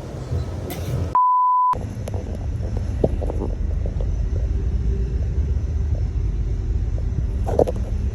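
A short single-pitch censor bleep about a second in, replacing the audio. Then a steady low rumble of a moving train.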